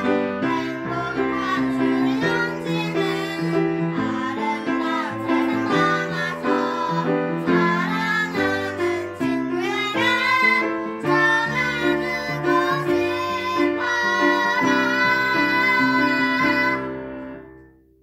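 Two children singing a two-part soprano and alto duet over piano accompaniment. The music dies away about a second before the end as the last notes fade.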